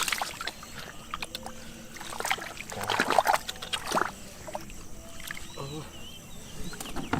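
Shallow water splashing and sloshing in irregular bursts as someone wades and gropes by hand in a flooded field, busiest a few seconds in.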